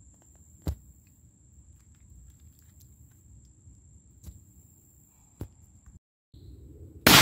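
Faint outdoor background with a few soft clicks, then near the end one sudden, very loud shot from a 12-gauge Mossberg 590A1 pump shotgun firing 00 buckshot, its report fading over a second or more.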